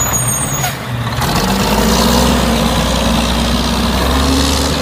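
Rear-loading garbage truck's diesel engine running, a steady low hum that grows stronger about a second in and then climbs gently in pitch.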